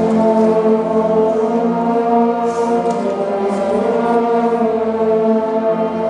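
Orchestra of strings, brass and piano playing slow, sustained chords that change every second or so.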